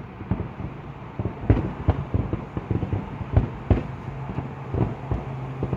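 Fireworks going off: a string of irregular bangs and crackles, with louder bangs about a second and a half in and twice in quick succession a little past the middle.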